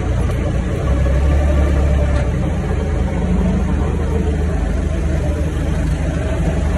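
Forklift engine running steadily, heard from inside the enclosed cab, a low drone that swells for a second or so about a second in.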